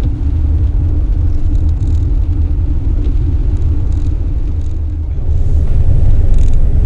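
Toyota Alphard van driving on a wet road, heard from inside the cab: a steady low rumble of engine and tyres, getting a little louder about five seconds in.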